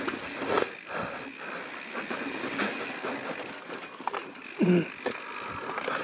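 YT Izzo mountain bike rolling over slickrock: steady tyre and riding noise with frequent clicks and rattles from the bike. The rider makes a short vocal sound, like a grunt, about two-thirds of the way through.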